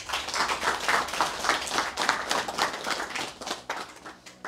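A small group of men applauding, a dense run of hand claps that thins out near the end.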